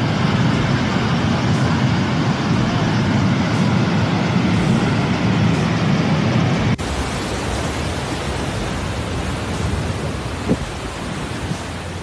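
Muddy flash-flood torrent rushing down a slope: a loud, steady rush of water, deepest in the low end. About halfway through it cuts to floodwater running over a street, a slightly quieter rush with more hiss.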